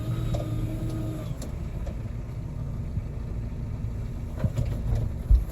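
Excavator's diesel engine running steadily, with a hydraulic whine during the first second or so. Two thumps near the end.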